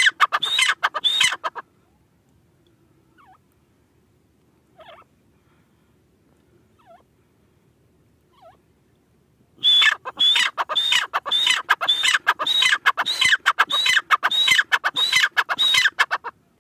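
Grey francolin calling: a loud, rapidly repeated high call that stops about a second and a half in, a few faint single notes, then the loud repeated series again from about ten seconds in until near the end.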